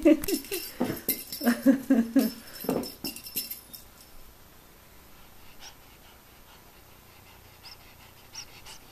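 F6 Savannah cat giving a fast run of short, chirping calls, several a second, for the first two and a half seconds, with one more call near three seconds. After that it goes quiet.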